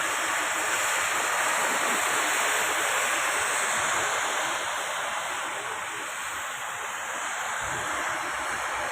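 Rain falling steadily, an even hiss that eases slightly a little past the middle.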